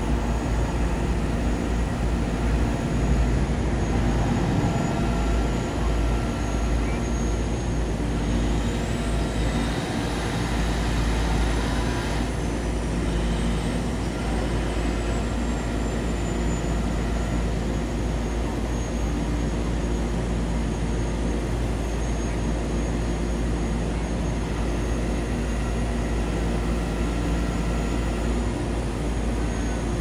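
Heavy rotator tow truck's diesel engine running steadily, with a high whine that rises and then falls away over a few seconds about eight seconds in.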